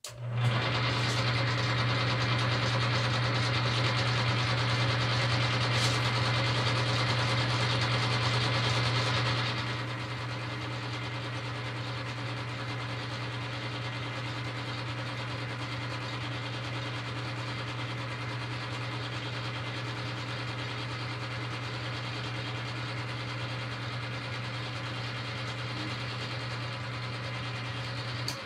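Metal lathe running under power feed while a high-speed steel tool skims the copper commutator of an electric motor's armature, a steady machine hum. It is louder and hissier for about the first nine seconds, then settles to a quieter steady run. The cut is truing a commutator worn by arcing brushes.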